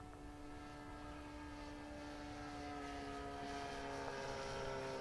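Two-stroke glow engine of an R/C model airplane in flight, running a steady high-pitched drone that grows louder and drops a little in pitch in the second half.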